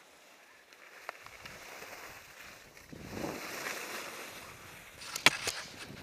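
Skis scraping and hissing over packed snow as a skier descends, with wind rushing over the action camera's microphone; the rush grows louder after the first second. A few sharp knocks come about five seconds in.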